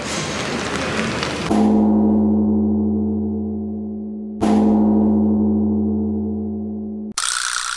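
A low gong-like tone struck twice, about three seconds apart. Each stroke rings and slowly fades, and the second is cut off abruptly. Before the first stroke there is a steady hiss of background noise.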